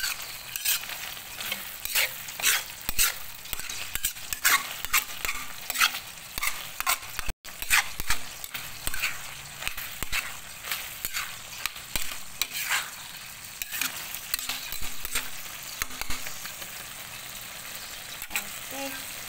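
Metal spatula stirring and scraping a saucy mushroom-and-vegetable stir-fry around a sizzling wok: repeated scrapes against the pan over a steady sizzle. The scrapes come often in the first half, then thin out.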